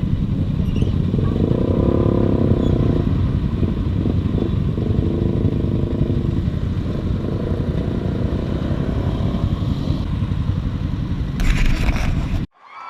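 Motorcycle riding along, its engine running under a steady heavy wind rumble on the microphone; a louder rush of wind shortly before the end, then the sound cuts off abruptly.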